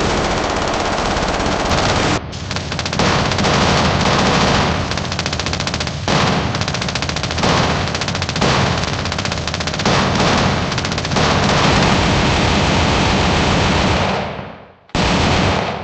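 Machine-gun fire sound effect: long, rapid bursts of automatic gunfire, one after another with brief dips between them. It fades out near the end, and a new burst starts abruptly.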